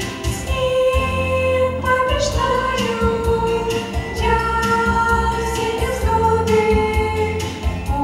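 Three teenage girls singing a song together into handheld microphones, holding long sung notes through amplification.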